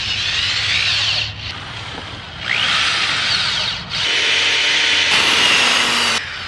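Corded electric drill driving screws through greenhouse plastic sheeting into a wooden frame, in three separate runs, the motor's whine rising in pitch as each run starts.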